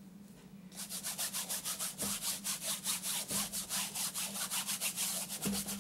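Quick back-and-forth scrubbing strokes on a stretched canvas, rubbing paint into the surface, starting about a second in at about six strokes a second.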